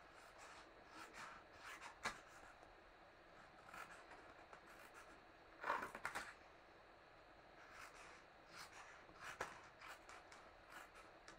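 Small scissors snipping paper in short, faint cuts with light paper rustling, trimming small bevels beside the folds; the loudest run of snips comes about six seconds in.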